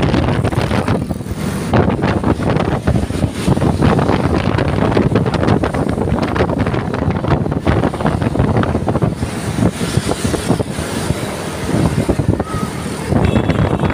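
Road vehicle noise with wind buffeting the microphone, gusting unevenly; no horn melody stands out.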